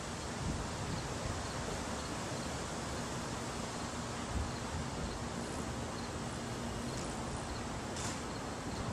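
Steady outdoor background hiss with faint high ticks at a regular pace, and a faint low steady hum that stops about seven seconds in.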